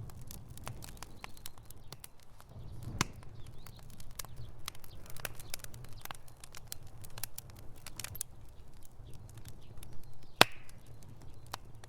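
Campfire crackling: burning wood popping in quick, irregular clicks over a low rumble, with a sharp pop about three seconds in and a louder one near the end.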